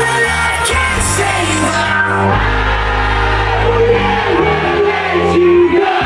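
Loud electro house played live by a DJ over a concert PA, with long held bass notes that change every second or so and singing over them. The crowd shouts along.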